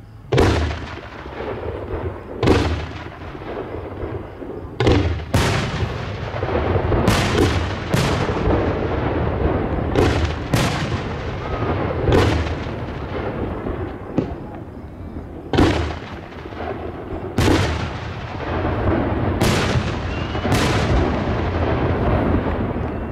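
Aerial firework shells bursting overhead: about fourteen sharp bangs at uneven gaps of half a second to a few seconds, each trailing off in a long echoing rumble.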